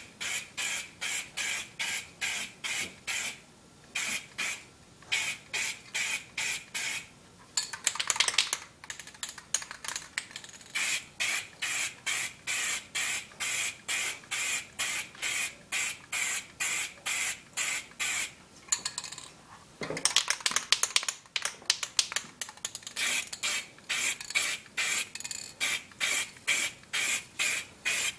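Sandpaper rubbing back and forth over a motorcycle helmet shell in steady strokes, about two and a half a second. The strokes stop briefly twice and come in two quicker, denser spells of scrubbing.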